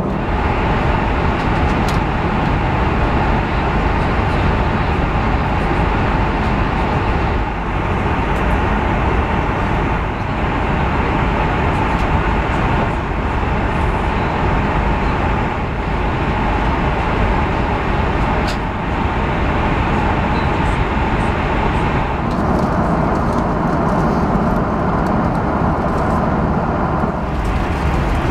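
Steady cabin noise of an Airbus A330-300 in cruise flight: engine and airflow noise with a steady hum. Its balance shifts slightly about 22 seconds in and again near the end.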